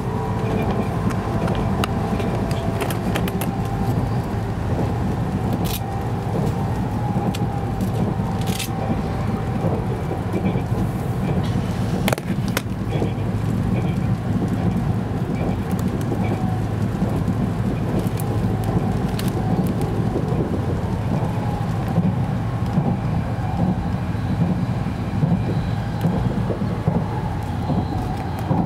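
700 Series Shinkansen running at speed, heard inside the passenger cabin: a steady low rumble from wheels and rails with a faint steady whine over it. A few light clicks come through, about six, eight and twelve seconds in.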